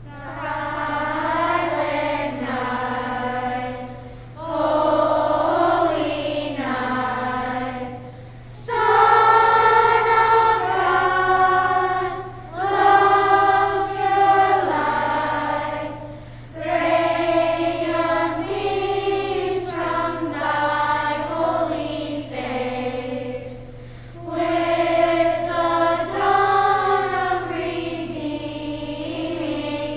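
Choir singing slow, sustained phrases a few seconds long, with short breaths between them.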